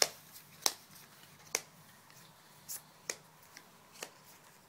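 Yu-Gi-Oh trading cards being set down one at a time on a playmat, a sharp snap or tap with each card, about seven at uneven intervals.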